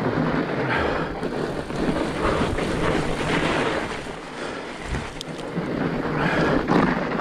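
Steady noise of a fat bike being ridden along a trail, its wide tyres rolling over the ground.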